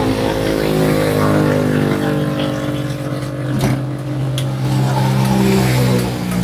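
A motor vehicle's engine running steadily close by, its pitch drifting slowly. Two short clicks come about three and a half and four and a half seconds in.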